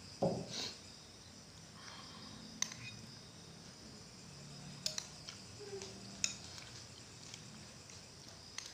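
A metal spoon clinking and scraping now and then against a glass bowl during eating, with a knock just after the start as a drinking glass is set down. Crickets chirp faintly and steadily behind it.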